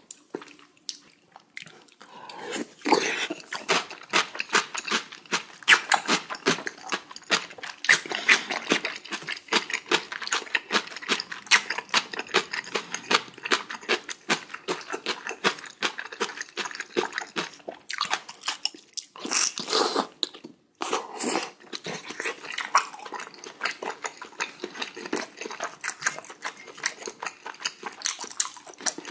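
Close-miked eating sounds: wet slurping, lip-smacking and chewing clicks as a person eats spicy beef small-intestine hot pot mixed with rice, with a short silent break about two-thirds through.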